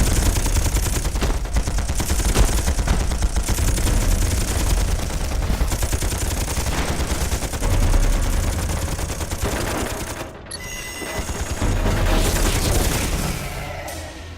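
A sustained barrage of rapid automatic gunfire, many shots a second, with deep low rumble under it. It thins out briefly about ten seconds in, then picks up again before fading near the end.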